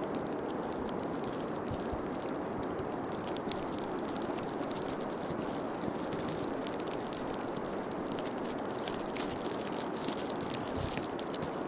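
Steady rushing noise with scattered faint clicks and crackles, an ambient ASMR-style background track.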